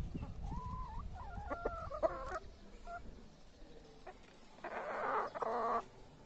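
Chickens clucking: a few short, wavering calls in the first two seconds or so, then a louder call lasting about a second near the five-second mark.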